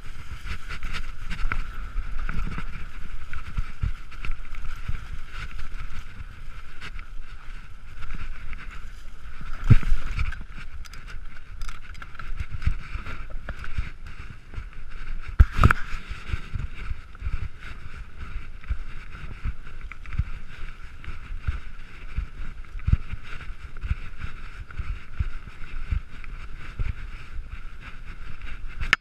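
Mountain bike riding down a dirt forest trail: tyres rolling over dirt and leaves, the bike rattling on the bumps over a steady high buzz, with two heavier knocks about ten and fifteen seconds in.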